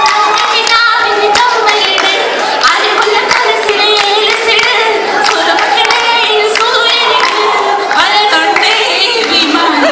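A crowd clapping along while many voices sing and shout together, with sharp claps throughout.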